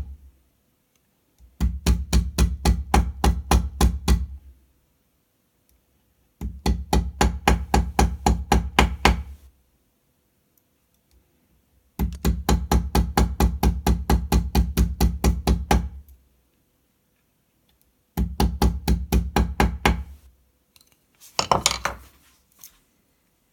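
Ball-peen hammer tapping a bent Victorinox Swiss Army knife blade against a small steel block to straighten it: quick, sharp metal-on-metal strikes, about five a second, in four runs of a few seconds with short pauses. Near the end there is a brief, louder clatter.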